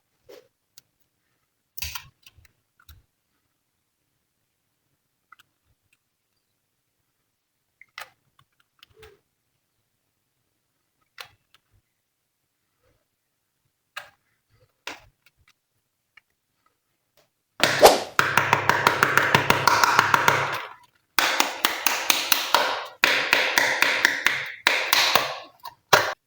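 Slime being handled: a few scattered soft taps and clicks, then about 17 seconds in a dense stretch of rapid crackling, popping slime clicks that runs for several seconds with a short break in the middle.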